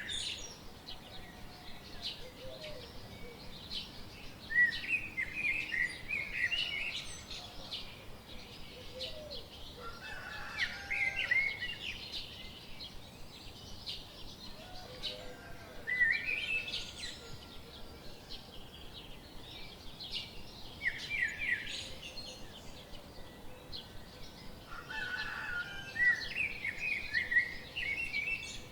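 Birds chirping in short bursts of quick, rising and falling notes that come back every few seconds, over a faint background of rapid ticks.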